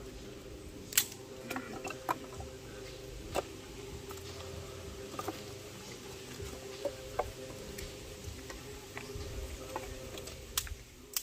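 Sticks and kindling being handled while a cooking fire is built: irregular sharp clicks and snaps over a low wind rumble on the microphone and a faint steady hum.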